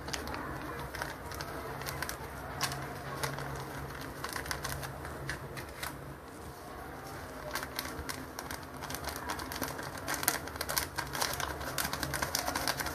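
Baking powder tipped into cake batter and the batter stirred in a bowl: light clicks and scrapes of a utensil against the bowl, growing busier in the second half.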